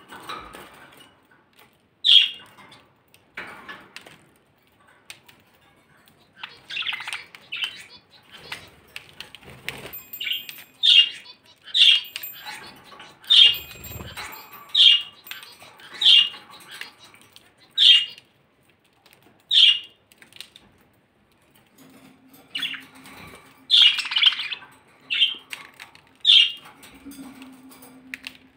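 Pet budgerigars giving short, sharp chirps and squawks, at times about one a second, with a few bunched calls near the end.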